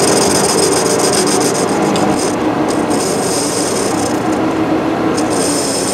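Metal lathe turning an aluminum workpiece while a roughing tool cuts it down: a steady machine hum under a high hiss that breaks off briefly twice.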